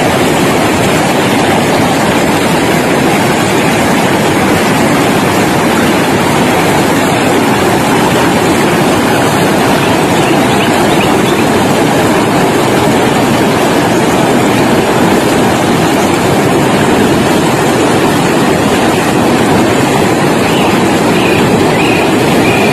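Steady loud rush of river rapids: muddy water running high and breaking over boulders, the river swollen by the rainy season.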